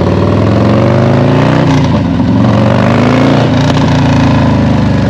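Custom Harley-Davidson Fat Boy's Milwaukee-Eight 114 V-twin running loud through its TBR 2-into-1 exhaust, revved up and down, with the pitch rising and falling.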